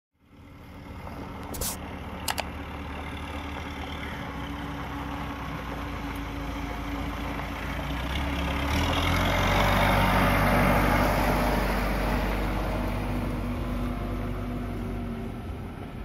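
Backhoe loader's diesel engine running as the machine drives along a dirt track, growing louder as it comes close about ten seconds in and then easing off as it passes. Two short clicks near the start.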